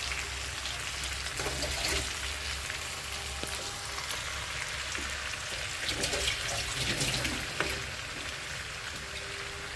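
Food frying in a pan: a steady sizzle with scattered crackles and a few small clicks.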